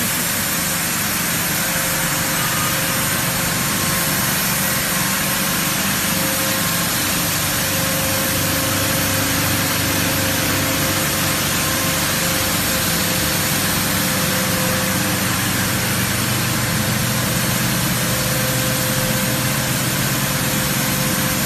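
Single-stage PP/PE film granulator line with agglomerator running: a steady machine hum with a constant hiss over it, unchanging throughout.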